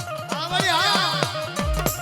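Gujarati folk devotional music with no voice: a steady drum beat, about three strokes a second, under a held tone. A wavering, quickly bending melody line sounds about half a second in, and deep bass drum beats come in near the end.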